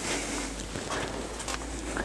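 Plastic-wrapped bale of rock-wool stuffing insulation rustling and crinkling as it is handled, with a few light clicks.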